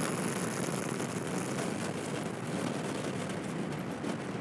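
Rocket engine noise from the South Korean Nuri (KSLV-II) rocket climbing away after liftoff: a steady rushing rumble with a fine crackle.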